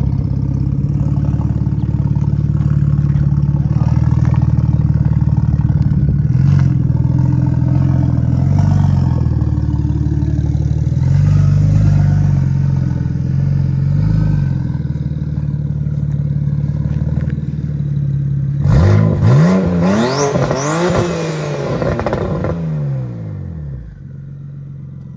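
BMW 335i's turbocharged straight-six running with light throttle blips, then revved several times in quick succession, its pitch sweeping up and down, about three quarters of the way through before it settles and falls off in level.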